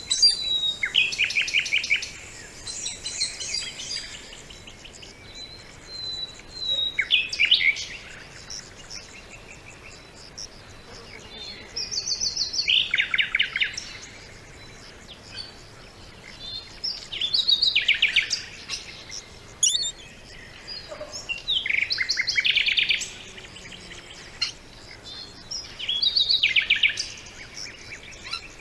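Songbird singing in repeated phrases about every four to five seconds, each phrase a quick trill of rapidly repeated notes lasting a second or two, over a faint background hiss.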